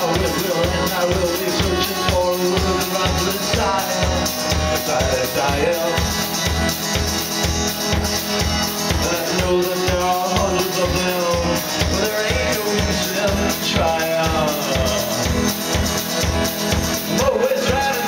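Live rock band playing a song: a steady drum-kit beat under acoustic and electric guitars and keyboard, with a male lead vocal singing over it.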